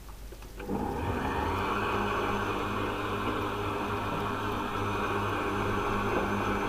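Countertop blender switched on by its front knob about a second in, then running steadily: an electric motor whirring as the blades chop dry, flaky contents in the glass jar.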